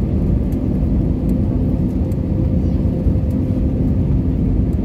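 Jet airliner cabin noise on final approach: a steady low rumble of the engines and rushing air, heard inside the cabin, with a faint steady hum through most of it.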